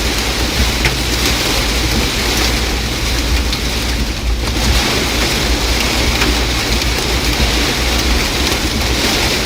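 Heavy rain mixed with hail pelting the car's roof and windshield, heard from inside the cabin: a dense, steady hiss scattered with sharp ticks of ice, over a low road rumble. It eases briefly about four seconds in.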